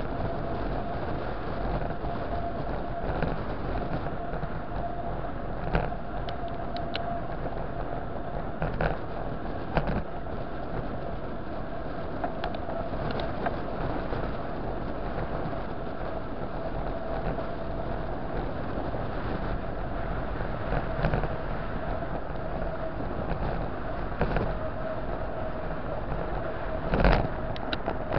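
Bicycle ridden along city asphalt, heard from a camera mounted on the bike: a steady rush of tyre and wind noise with a faint steady whine, and a few short knocks as it goes over bumps, the loudest near the end.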